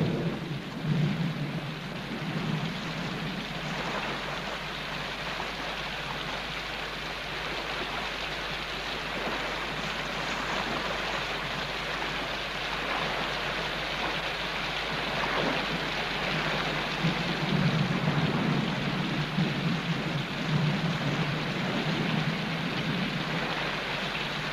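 Steady heavy tropical rain falling, with low rumbles of thunder about a second in and again in the second half.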